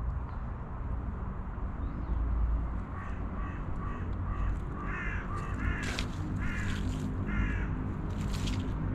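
A crow cawing over and over, starting about three seconds in, about two harsh caws a second, over a steady low rumble.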